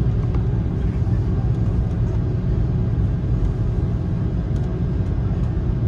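Steady low rumble in the passenger cabin of an Airbus A330-200 on the ground at low speed, its jet engines running, with a few faint ticks of cabin rattle.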